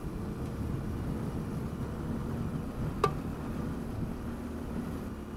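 Yamaha Ténéré 700 adventure motorcycle riding along a gravel track: a steady low rumble of engine, tyres and wind, with a single sharp click about three seconds in.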